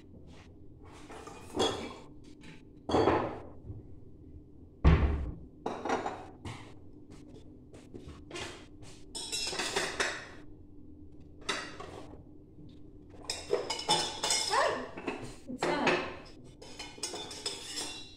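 Kitchenware being handled on a countertop: glass bottles, jars and utensils clinking and knocking in a string of short, irregular clatters, with one heavy thump about five seconds in.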